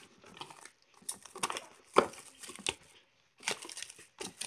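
Plastic food wrap crinkling as it is pulled from its box and pressed down over the mouth of a glass jar, in irregular crackles, the loudest about two seconds in.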